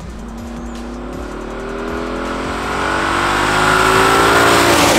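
Audi A6 C6 4.2-litre V8 with an aftermarket Eisenmann exhaust accelerating toward and past the listener. Its engine note climbs steadily in pitch and grows louder, peaking near the end as the car goes by.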